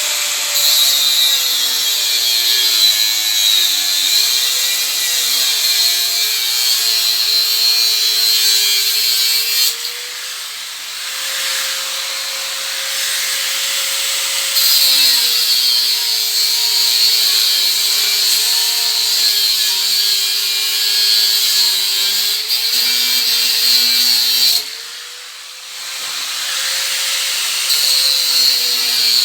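A small motor-driven power tool running with a loud, high hiss over a wavering hum. Twice, about ten and twenty-five seconds in, the hiss drops away for a few seconds while the hum holds a steadier pitch.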